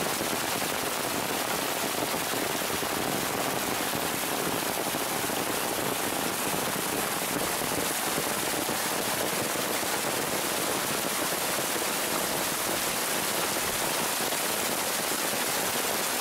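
Very heavy downpour of rain falling on pavement and soil, a dense steady hiss, mixed with stormwater runoff gushing through a channel into a mulch basin.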